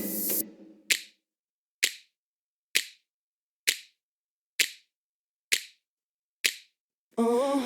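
Seven sharp clicks or snaps, evenly spaced at a little under one per second, with silence between them. A drum-backed music track cuts off just before the clicks begin, and another piece of music starts near the end.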